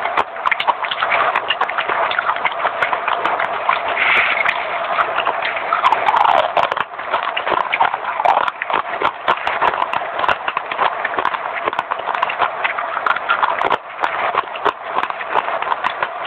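Close-up chewing and crunching of crisp baked clay: a dense, irregular run of crackles and snaps.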